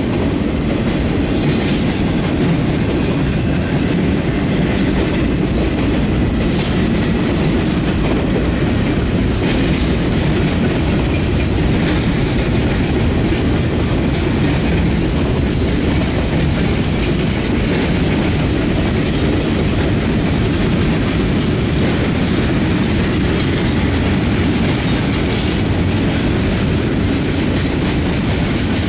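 Mixed freight train cars rolling past: a steady rumble of steel wheels on rail, with clickety-clack over the rail joints. A few brief, faint, high wheel squeals come through, about two seconds in and again near the last quarter.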